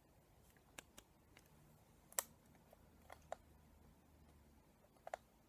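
Near silence broken by a handful of faint, scattered plastic clicks and taps, the sharpest about two seconds in, as the remote-control Eevee toy and its controller are worked; the toy is not yet responding.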